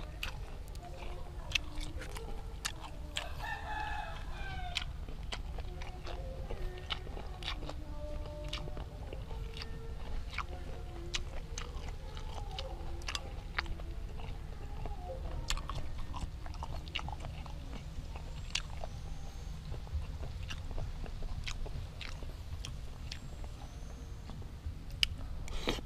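Close-up chewing of grilled apple snail meat and herb leaves, with many small wet mouth clicks throughout. A rooster crows in the background about three seconds in, for about a second and a half.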